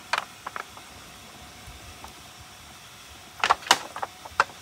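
Clicks and knocks of hand work on engine parts as a part is pushed and fitted into place: a few light clicks at the start, then a quick burst of sharper knocks a little past the middle and one more near the end.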